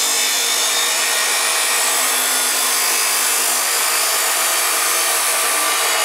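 DeWalt D28730 abrasive chop saw cutting through a steel bar: the cut-off wheel grinds steadily into the metal over the steady hum of the motor.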